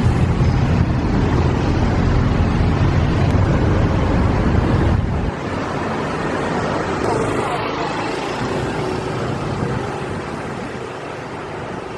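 Loud, steady rushing noise with a heavy low rumble, which drops suddenly to a softer hiss about five seconds in.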